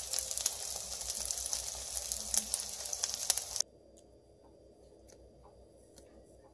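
Rice pancakes with chopped vegetables sizzling and crackling in oil in a frying pan. The sizzling cuts off suddenly about three and a half seconds in, leaving only faint scattered ticks.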